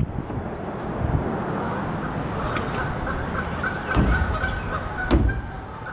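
Poultry calling: a run of short, repeated calls in the second half, over a steady outdoor background. Two sharp knocks come about four and five seconds in.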